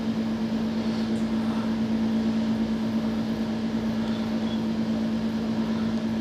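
Steady hum of a running machine: one constant tone that holds without a break or change in pitch.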